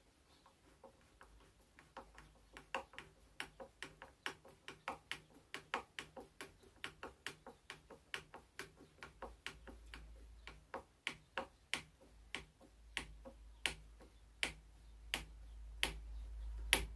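Hand screwdriver turning the Phillips butt pad screw back into a wooden rifle stock, making a long run of sharp, even clicks, about two to three a second.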